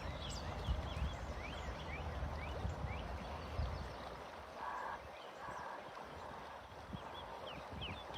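Several wild birds chirping and singing, many short rising and falling notes overlapping, with two brief lower notes in the middle. Low thumps and rumble run under the first half.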